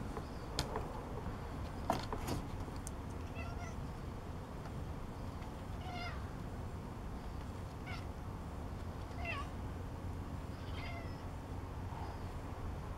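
Grey tabby cat meowing about five times, short calls a second or two apart. A couple of sharp knocks come in the first two seconds.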